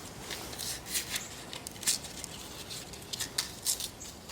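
Light, irregular clicks and scrapes of small metal parts being handled: a 4-way valve tool and a Schrader valve core.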